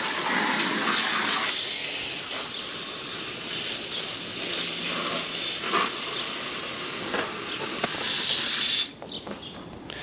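Water from a hose spraying onto the hot shell of an overheated AC compressor, a steady hiss of spray and steam as it is cooled so its internal thermal overload can reset. The spray cuts off sharply about nine seconds in.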